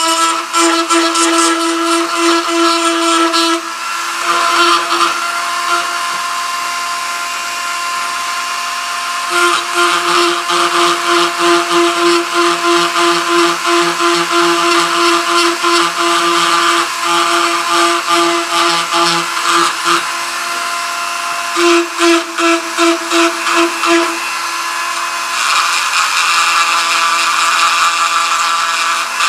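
Dremel rotary tool running steadily with a high whine while its small bit grinds and shapes the leg of a lead toy figure. For long stretches the sound pulses about twice a second as the bit is pressed to the work and eased off in short strokes.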